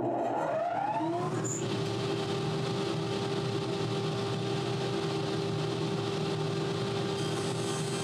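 A woodworking power tool's electric motor starting up: its whine rises in pitch for about a second and a half, then it runs steadily at one pitch.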